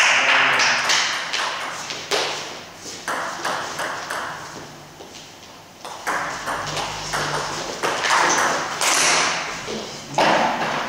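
Table tennis ball clicking back and forth off paddles and table in a doubles rally, with a few louder bursts of noise near the start, near the end and just before it.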